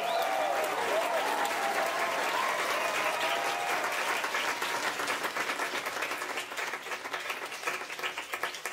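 Audience clapping and cheering, with voices whooping in the first few seconds; the clapping thins out to scattered claps near the end.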